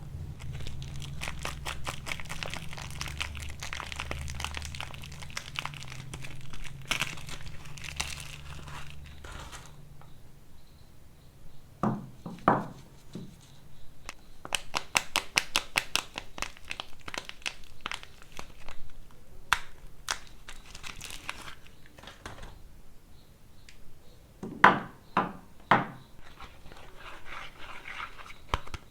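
Wrapping on bars of soap crinkling and tearing as the soaps are unpacked by hand, a dense run of small crackles. A few louder knocks stand out: two near the middle and three in quick succession later on.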